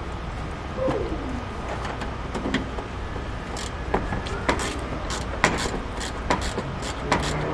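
Irregular sharp clicks and knocks of hand work on a car's plastic headlight housing and its screws, coming thicker in the second half. About a second in, a dove coos once, a short low call that glides downward.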